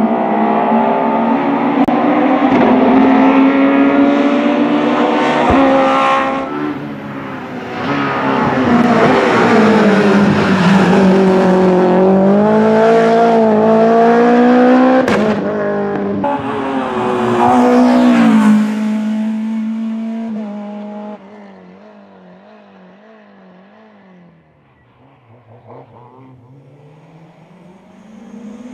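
BMW rally car's engine at high revs on a tarmac stage, its pitch climbing and dropping again and again with gear changes and lifts for the corners. About 21 seconds in it drops to a faint, wavering engine note.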